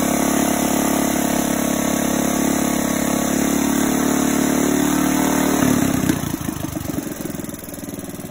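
Freshly rebuilt Briggs & Stratton Raptor 3 single-cylinder race engine with a long two-stage header pipe, running steadily at a raised speed. About six seconds in it drops off sharply and settles to a slow, uneven idle.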